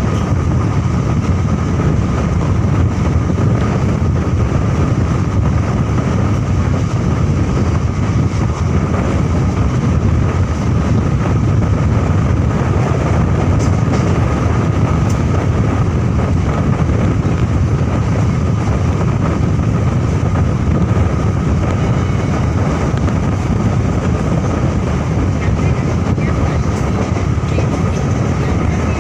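Passenger train running at speed, heard from the side of a moving coach: a steady low rumble of wheels on rails, with a thin steady whine running through it.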